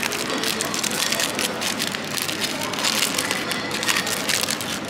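Plastic snack packaging crinkling and crackling as it is handled, a dense run of irregular crackles.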